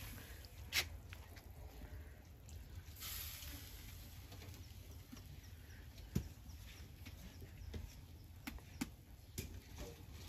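Pot of noodles boiling on a wood-fired stove: faint scattered pops and crackles over a low rumble, with a short hiss about three seconds in.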